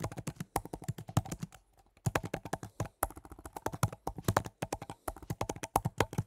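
Fast typing on a computer keyboard: a quick, irregular run of key clicks, with a short pause about two seconds in, as a terminal command is keyed in.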